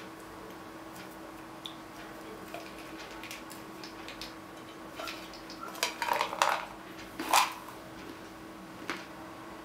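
Salted peanuts clattering and rattling in a tin can as it is tipped up and the nuts are poured into the mouth, with a dense run of clatters about six seconds in and a louder one just after. A faint steady hum runs underneath.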